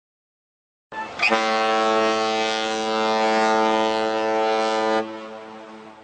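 Boat horn sounding one long, steady blast of about four seconds, starting about a second in, then stopping and dying away over about a second.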